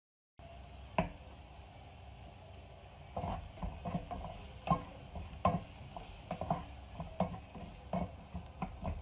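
Wooden spatula stirring chopped onions in a nonstick frying pan, scraping and knocking against the pan, over a steady frying sizzle. A single sharp knock comes about a second in, and the stirring strokes start about three seconds in, roughly one or two a second.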